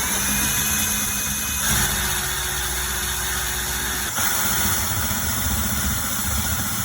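An electric power tool running steadily under load, its motor spinning up at the start, with its pitch shifting twice along the way.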